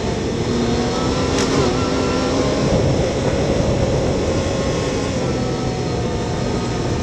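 Yamaha YXZ1000R side-by-side's three-cylinder engine running steadily at around 25–30 mph, mixed with the rumble of tyres on a dirt and gravel trail.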